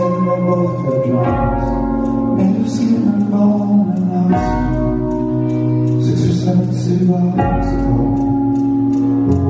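Live band music: a male voice singing drawn-out phrases over sustained keyboard chords and bass notes. The chords change every one to three seconds.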